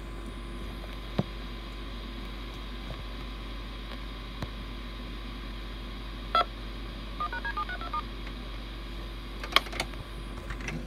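A quick string of touch-tone (DTMF) phone-dialing beeps, about eight in under a second, heard about seven seconds in: the 'phone dial noise' recorded at the start of the VHS tape as it plays. Steady tape hiss and hum run underneath, with a few sharp clicks, the loudest just before the beeps.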